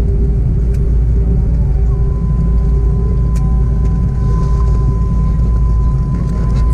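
Airliner cabin noise of an Airbus A330-200 taxiing after landing: a loud, steady low rumble with a steady engine hum, joined about two seconds in by a higher steady whine.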